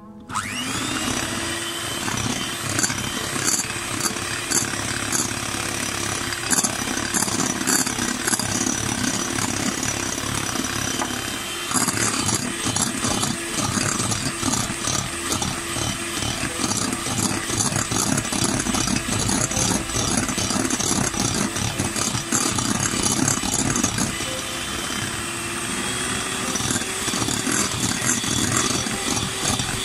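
Electric hand mixer running at speed, its twin beaters whisking a thin egg, sugar, milk and oil batter in a glass bowl: a steady motor whine with the clatter of the beaters. It switches on at the start and gets louder about twelve seconds in.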